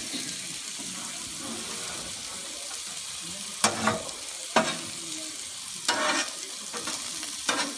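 Burger patty and potato rounds sizzling on a hot flat top griddle, a steady hiss. A perforated metal spatula clacks against the griddle plate a few times, with a short scrape about six seconds in, as the potatoes are pushed around.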